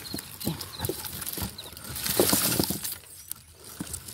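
Guamúchil (pinzán) pods pouring and tumbling out of a plastic bucket into a bin: a clattering, rustling rush of pods and dry husks, loudest about two seconds in.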